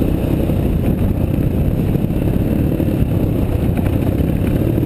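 Dirt bike engine running steadily while riding a dirt trail, heard from the bike the camera is mounted on.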